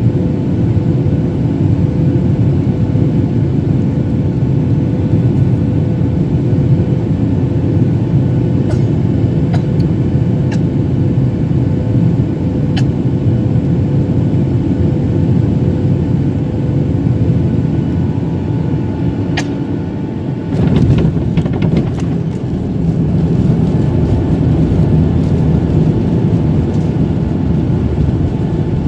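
Steady roar of a Boeing 737-800's engines and airflow heard inside the cabin, with a steady hum and a few faint clicks. About two-thirds of the way through comes a sudden thump and rattle, after which the rumble grows heavier.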